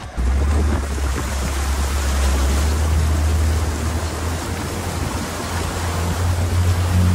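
Pickup truck's tyres ploughing through shallow water, a steady loud rush of splashing spray over a low, steady drone from the vehicle. It begins abruptly just after the start.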